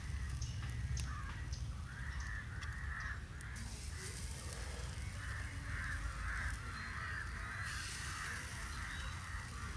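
Crows cawing in two runs of harsh repeated calls, one about two seconds in and a longer one in the middle, over a steady low rumble.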